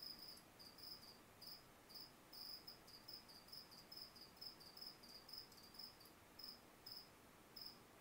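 Cricket chirping faintly and steadily, short even chirps about two to three a second.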